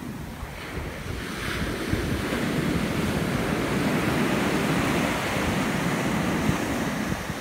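Ocean surf breaking and washing up over a sandy beach, a steady rushing that builds over the first two seconds and eases near the end. Wind buffets the microphone throughout.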